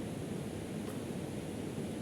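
Steady low background noise, a hiss and rumble with no voice, with one faint tick about a second in.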